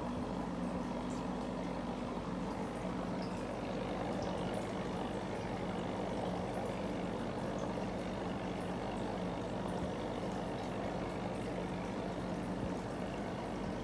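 Aquarium sponge filter bubbling steadily as air rises through it, with a steady low hum underneath.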